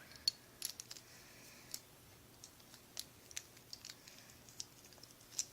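Faint, scattered clicks and taps of the plastic and metal parts of a Ninja Salamander SW145SD Beyblade being handled and snapped together as the top is rebuilt into its other mode.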